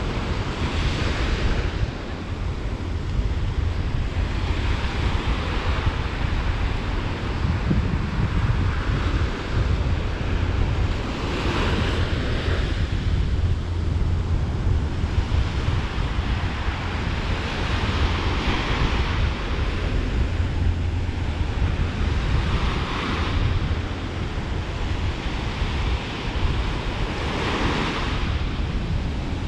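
Small ocean waves breaking and washing up the beach, a new wash every few seconds, over a steady rumble of wind on the microphone.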